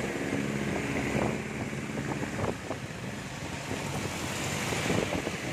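Heavy rain and wet-road traffic heard from inside an open-sided vehicle: a steady hiss of downpour and tyres on water. An engine hum fades out about a second in, with scattered taps of drops through the rest.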